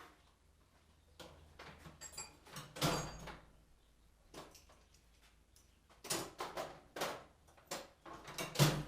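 Handling noise from unpacking a machine's shipping crate: a run of irregular knocks, scrapes and rattles, with two heavier thumps, one about three seconds in and one near the end.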